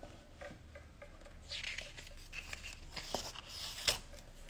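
Large photobook pages being turned slowly by hand: soft paper rustling and sliding, with a swish about a second and a half in and a small tap near the end.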